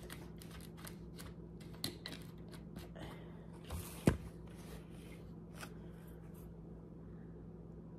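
Soy sauce bottle being capped by hand: small clicks and plastic rustles as the cap is twisted on, with one sharper click about four seconds in. A steady low hum runs underneath.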